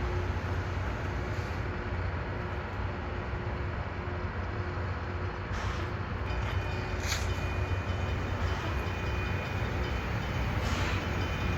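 Loram crossing rail grinder running on the track with a steady low machine drone. About six seconds in, a high steady whine joins it, with a few brief hissing bursts.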